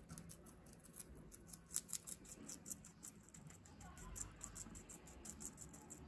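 Guinea pigs chewing crisp pak choi stalks and leaves: a fast, irregular run of faint crunching clicks, a few louder bites about two seconds in.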